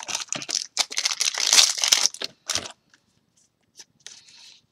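Plastic booster-pack wrapper crinkling and tearing open for about two and a half seconds, then a faint rustle of trading cards being handled near the end.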